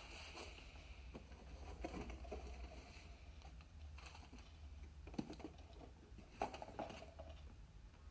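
Faint unpacking noises: a cardboard box and bagged test leads being handled, scattered light taps and short rustles, a little louder about five and six and a half seconds in.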